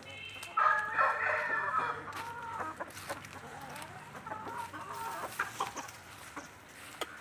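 Aseel chickens calling. A loud, drawn-out call starts about half a second in and lasts over a second, followed by softer, shorter calls for a few seconds.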